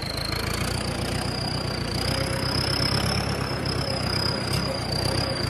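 A tractor's diesel engine running steadily as the tractor drives along, with a steady high-pitched whine running over it.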